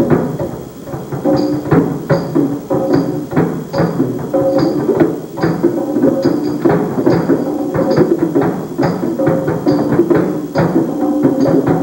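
Live percussion music: drums played in a fast, busy rhythm, with a higher click ticking about twice a second on top.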